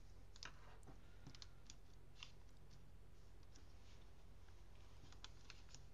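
Near silence: faint scattered crinkles and clicks of origami paper being folded and pressed flat by hand, over a low steady hum.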